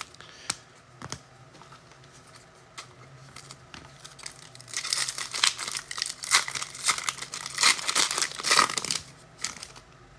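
A trading-card pack wrapper being torn open and crinkled. A few light clicks come first, then a run of crinkling and tearing from about five seconds in until shortly before the end.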